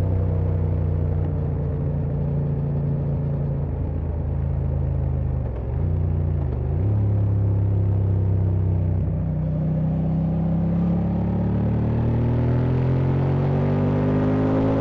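Honda Transalp XL750's parallel-twin engine, heard from the rider's seat while riding. Its note falls slowly as the bike slows, dips and recovers briefly about six seconds in, then climbs steadily as the bike accelerates hard.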